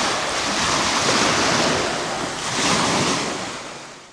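Surf washing onto a sandy beach, with wind buffeting the microphone; the wash swells up and falls back, with a swell about two and a half seconds in, then fades out near the end.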